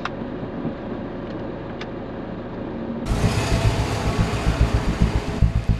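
Steady low rumble of a car's engine and road noise heard inside the cabin, with a few faint clicks. About three seconds in it cuts abruptly to a louder, uneven low rumble outdoors.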